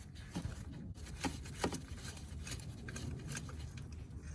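A loosened spark plug being unscrewed by hand and drawn out of its well in the engine: a few light metallic clicks and scrapes, irregularly spaced, over a low steady background hum.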